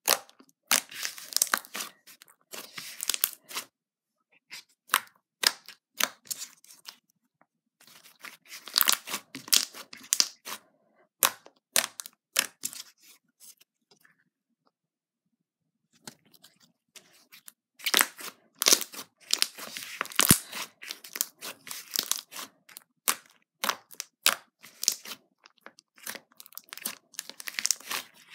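Thick, glossy slime being squeezed, poked and stretched by hand, giving runs of quick sticky crackles and popping clicks. The crackling stops for about two seconds a little past the middle, then starts again.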